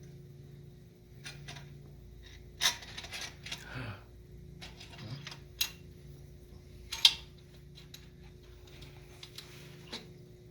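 Hand tools clinking and clicking against metal while a supercharger mounting bracket is bolted onto a Ford Coyote V8 in the engine bay: a few sharp, separate metal clinks, the loudest about seven seconds in, over a faint steady hum.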